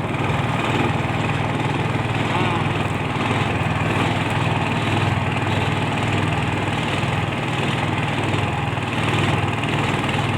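A small boat's engine running steadily at throttle.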